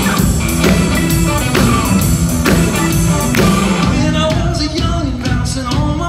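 A live band playing: electric guitar, bass guitar, keyboard and a drum kit keeping a steady beat, with the guitarist starting to sing about four seconds in.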